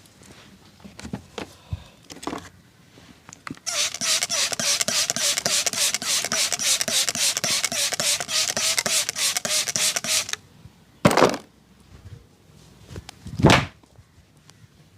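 Barber's hands striking rapidly and rhythmically during a head massage, about five or six slaps a second for several seconds, then two heavier single slaps a couple of seconds apart.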